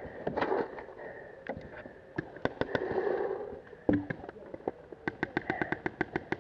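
Paintball markers firing: scattered single pops, then a fast string of about nine shots a second near the end.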